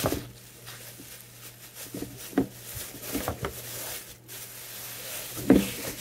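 Thin clear plastic bag crinkling and rustling as it is pulled off a plastic tub of protein powder, with a few sharp knocks of the tub and hands on the counter, the loudest near the end.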